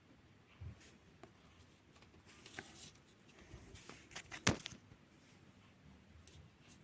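Handling noises from unboxing a fan: scattered small clicks and a brief rustle, with one sharp click about four and a half seconds in.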